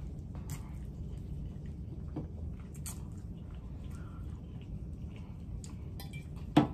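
Eating spaghetti: soft chewing with scattered light clicks of a fork against a plate, and a sharper clink near the end.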